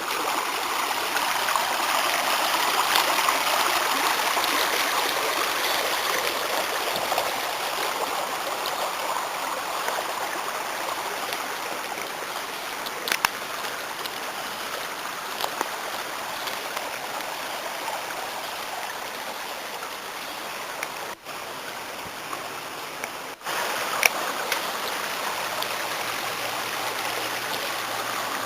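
Stream water running steadily, with a few small clicks.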